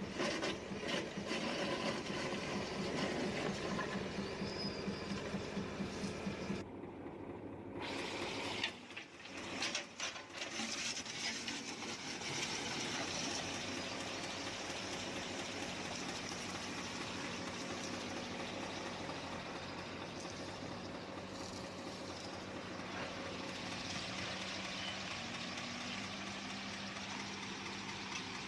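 Diesel engine of heavy road-works machinery running steadily, with brief breaks about seven and nine seconds in.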